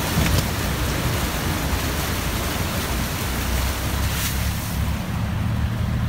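Wind blowing across the phone's microphone: a steady rushing noise with a heavy low rumble.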